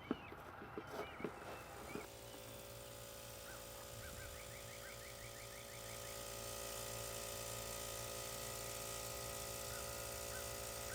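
A few soft knocks or footsteps, then a steady low background hum from about two seconds in, with occasional short faint chirps over it.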